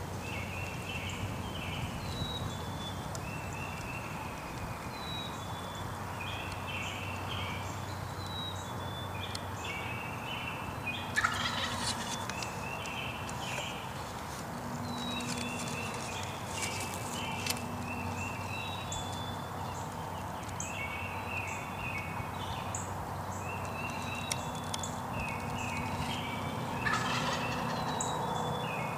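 Wild turkey gobbler gobbling twice, about 11 seconds in and again near the end, over a steady run of short, high bird calls repeating every second or two.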